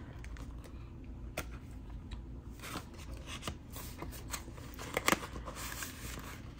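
Paper banknotes and cash envelopes being handled: soft rustling with scattered light clicks and taps, and a sharper one about five seconds in.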